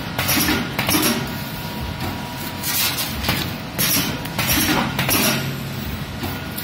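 Electro-pneumatic hair-pin riveting machine running, with short noisy bursts at an uneven pace of roughly one a second over a faint steady hum. Loose metal hair clips clink as they are picked from a pile.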